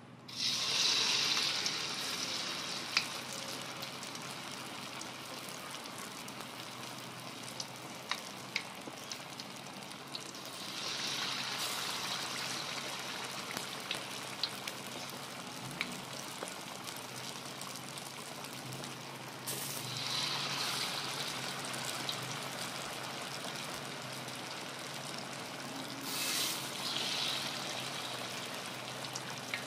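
Battered breadfruit slices deep-frying in hot oil in a wok: a steady sizzle with scattered small pops. It bursts up loudly as the first slice goes into the oil, then swells again three more times.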